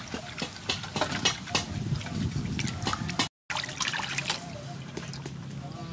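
Water splashing, sloshing and dripping in a metal basin as live sea snails are scrubbed and rinsed by hand. The sound cuts out for a moment just past halfway.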